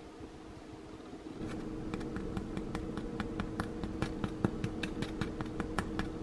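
Crust of a freshly baked baguette crackling under a finger, with a run of sharp, irregular clicks several a second that begins about a second and a half in.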